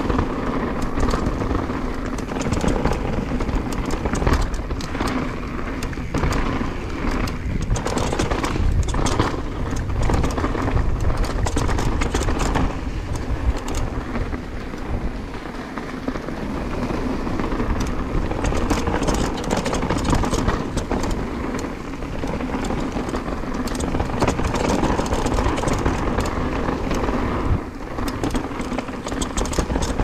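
2022 Nukeproof Dissent Comp mountain bike descending a rough dirt trail: a steady low rumble of tyres rolling over dirt and rocks, with frequent sharp clatters and knocks from the bike.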